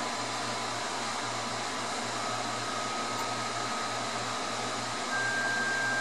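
Steady test tone sung by a McIntosh MC75 tube amplifier's transformer and tubes as the HP 8903 frequency sweep drives it at 75 watts: a tone near 1 kHz steps up in pitch about two seconds in and again, a little louder, about five seconds in. Under it runs a steady low hum and a constant rushing noise.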